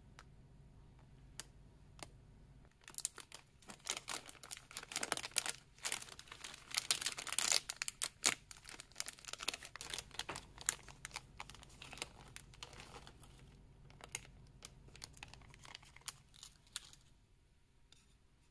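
Plastic snack packet crinkling as it is handled and torn open, then small flat dried snack pieces tipped out into a wooden bowl, landing with scattered light clicks. The crinkling is dense for several seconds and thins out to a few clicks near the end.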